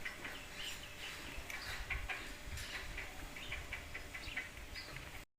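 Birds chirping in short, scattered calls over a low outdoor rumble; the sound cuts out briefly just before the end.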